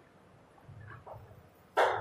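Chalk on a chalkboard: faint scratching strokes about a second in, then one sharper chalk stroke near the end, over a faint low hum.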